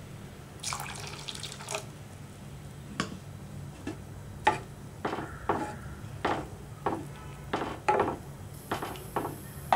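A little water poured into a pan of vermicelli cooking in milk, splashing briefly about a second in. Then a spoon stirring the pan, with about a dozen short scrapes and knocks against the pan.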